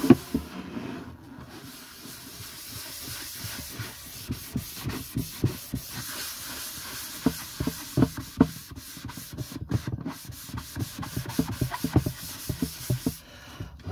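Cloth rubbing finishing oil into a wooden box lid by hand: a steady scrubbing hiss, broken by frequent light, irregular knocks as the hand and lid shift.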